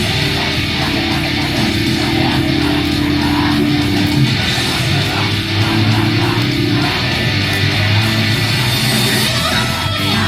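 J-pop idol group song performed live, loud and continuous, driven by strummed electric guitar.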